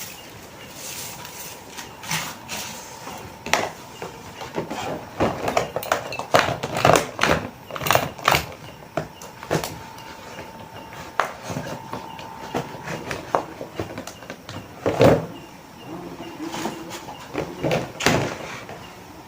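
Paper and plastic packing materials being handled: irregular crinkles, taps and clicks, with a faint steady tone underneath for much of it.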